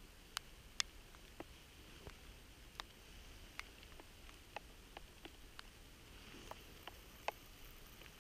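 Raindrops tapping on the camera: irregular sharp ticks about two a second, over a faint steady hiss of light rain.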